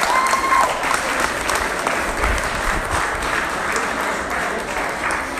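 Audience applauding in a hall: a steady spread of clapping, with one short held call near the start.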